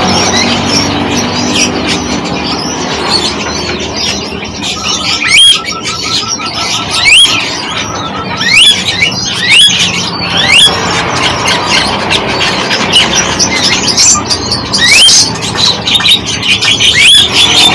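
Several songbirds calling together, a busy mix of chirps. Loud, sharply rising whistled notes repeat every second or two, and a fast trill runs through the middle.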